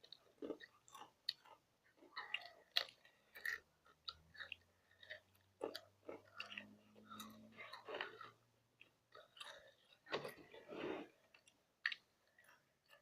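Someone chewing and crunching hot potato chips: irregular, quiet crunches and chomps, a few to several a second.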